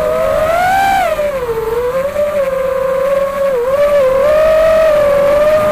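Electric motor and propeller of an FPV model aircraft, heard close from its onboard camera, whining steadily. The pitch rises about a second in, drops and settles lower, then dips briefly once more with changes of throttle.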